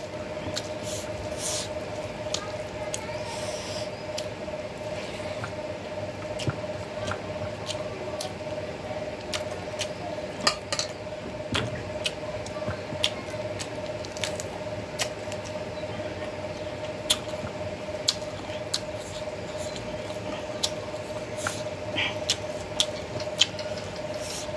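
Close-up eating sounds: fingers mixing rice and prawn curry on a steel plate and wet chewing and lip smacking, a stream of small clicks and squishes. A steady hum runs underneath.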